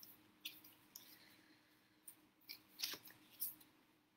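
Near silence: faint room hum with a handful of short, faint clicks and small rustles at irregular moments.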